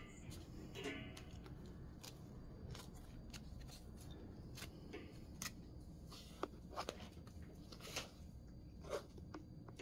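Faint handling of a plastic floss organizer card with skeins of embroidery floss on it: light rustling and scattered small clicks and taps, with a few sharper clicks in the second half.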